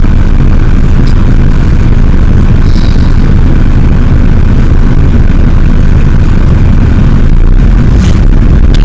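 A moving car heard from inside: a loud, steady, low rumble of road and driving noise.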